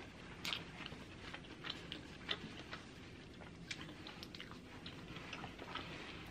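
A person chewing food close to the microphone: faint, irregular wet mouth clicks and smacks.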